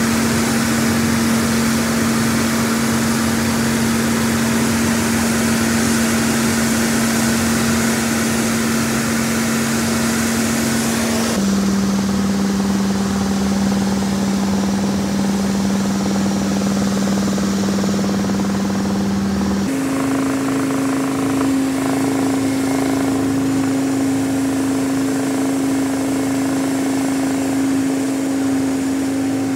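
Robinson R44 helicopter in flight, heard from inside the cockpit: the steady drone of its six-cylinder Lycoming piston engine, rotors and transmission, with a constant hum-tone. The pitch of the hum drops abruptly about 11 seconds in and rises abruptly about 20 seconds in.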